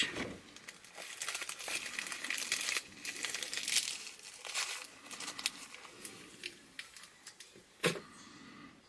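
Packaging being crinkled and pulled apart by hand while the next item is unwrapped, with a sharper crackle near the end.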